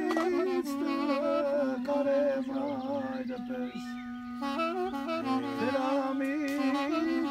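Short wooden folk wind pipe playing a wavering melody with vibrato over a steady held drone note. The melody breaks off for about a second partway through while the drone holds.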